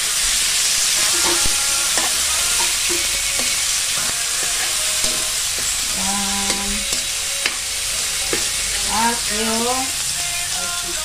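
Vegetables sizzling in hot oil in a metal wok while a metal spatula stirs and scrapes them around, with scattered sharp clicks of the spatula against the pan.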